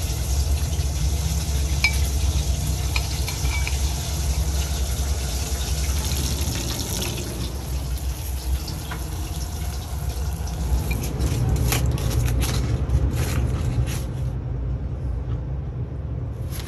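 Fried chicken dunked and turned with tongs in a jug of hot spiced oil, with a steady sizzling hiss over a low rumble. A few sharp clicks come near the end.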